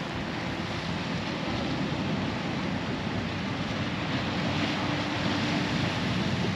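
Sea surf washing over rocks: a steady rushing that builds a little towards the middle, with some wind on the microphone.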